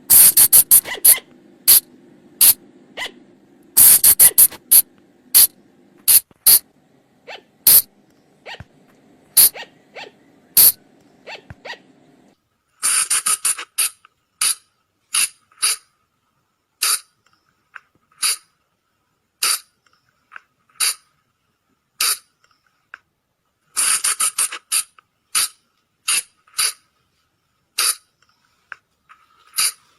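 Sunda colugo (flying lemur) calls: short, sharp squeaks, some in rapid volleys and others single at roughly one- to two-second intervals, from a recording played as a lure call. A low steady hum sits under the first half and cuts off suddenly, leaving silence between the calls.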